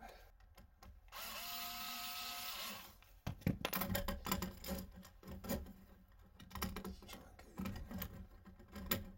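A small power tool's motor runs steadily at one pitch for about a second and a half, then stops. Irregular clicks and knocks follow as parts are handled.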